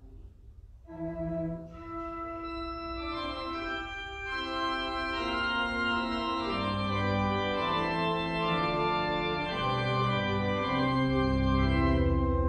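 Church organ playing sustained chords, coming in about a second in and growing fuller and louder as more notes are added, with deep bass notes joining near the end.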